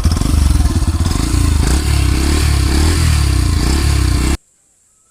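Yamaha FZ S FI V3's 149 cc single-cylinder engine running loudly through its exhaust with a pulsing beat, cutting off abruptly about four seconds in.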